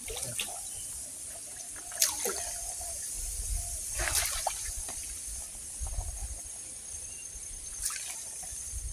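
Water splashing and dripping in a canal, with three sharper splashes about two, four and eight seconds in.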